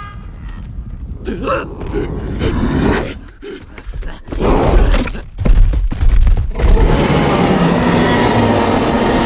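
Soundtrack effects: a cluster of heavy thuds and booms about halfway through, then a steady rushing noise with faint tones underneath.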